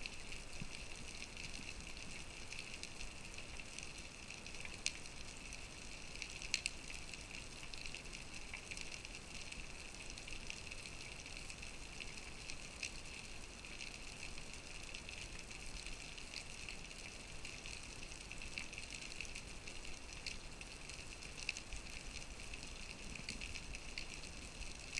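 Underwater ambient sound picked up by a camera in its waterproof housing: a steady faint hiss with fine crackling and a few sharper clicks.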